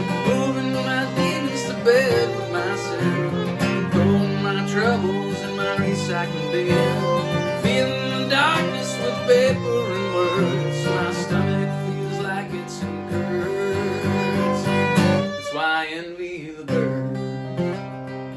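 Acoustic folk-bluegrass band playing an instrumental break: strummed acoustic guitar under a fiddle line. The low accompaniment drops out for about a second near the end, then comes back in.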